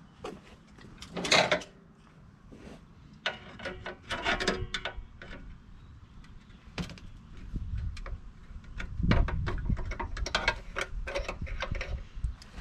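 Pliers working a retainer spring off a Mazda Miata's pop-up headlight assembly: irregular clicks, scrapes and rattles of the tool on the spring and bracket. They are loudest about a second in and again around nine to ten seconds in.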